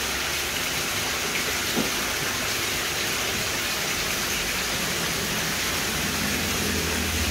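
Steady rush of water running and splashing into a plastic basin of koi, an even hiss-like spatter.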